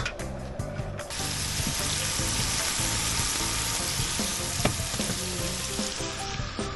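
Food frying in a pan: a steady sizzle that starts suddenly about a second in and fades near the end, over background music.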